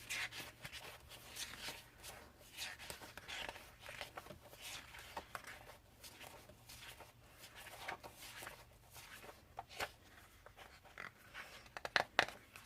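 Sheets of 12x12 scrapbook cardstock being leafed through one at a time while they are counted, giving a soft paper rustle and flick several times a second.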